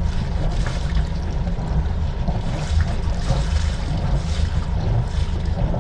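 Sailboat's inboard engine running slowly at idle in gear, a steady low rumble, with water noise along the hull.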